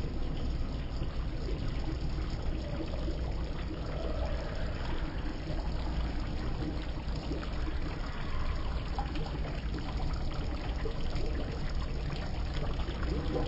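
Meat curry gravy bubbling in an open aluminium pot, a steady noisy rush with a faint crackle of bubbles.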